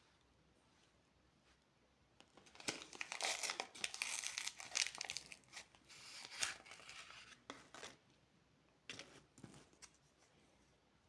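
Candy wrapper crinkling and tearing as a package is opened, starting about two seconds in and lasting several seconds, with a few more crinkles near the end.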